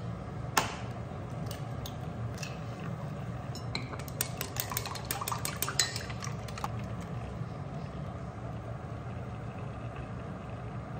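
Eggs being beaten with chopsticks in a glass bowl: a fast run of light clinks of the chopsticks against the glass for a few seconds in the middle, after one sharp clink near the start, over a steady low background hum.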